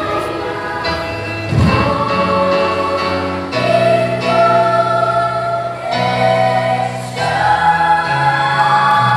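Children's choir singing, holding long chords that shift to new pitches every second or two, with a low thud about one and a half seconds in.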